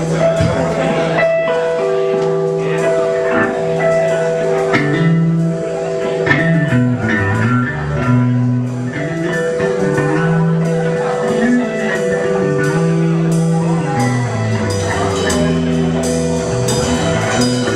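Live rock band playing a song: electric guitar holding long sustained notes over a moving bass line, with drums that settle into regular hits in the last few seconds.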